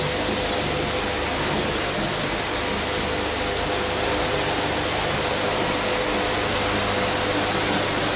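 Aquarium pump and filter running: a steady rush of moving, splashing water over a low, even motor hum.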